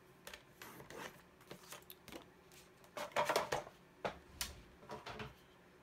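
A plastic paper trimmer and a sheet of cardstock being handled: a scatter of light clicks, slides and paper rustles, with the loudest clatter about three seconds in as the trimmer is moved aside.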